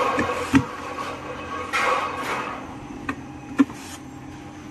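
Corded electric screwdriver working on a steamer's plastic base: a short noisy burst near the start and another about two seconds in, with sharp clicks about half a second in and twice more after three seconds.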